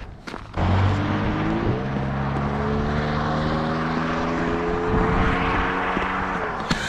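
A motor vehicle's engine running close by, a steady hum with road and rush noise, starting suddenly about half a second in and lasting several seconds, its pitch drifting slightly upward.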